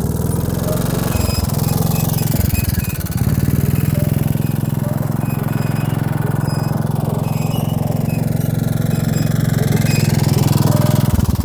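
1978 Kawasaki three-wheeler's engine running as the machine is ridden, the note uneven and dipping for the first three seconds, then holding a steady pitch.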